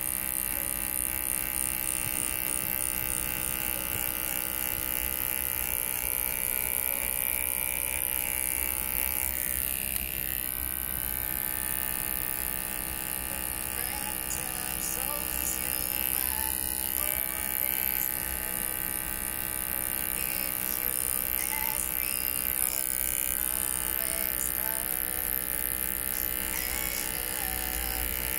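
Electric hair trimmer buzzing steadily as it shaves the hairline at the back of the neck.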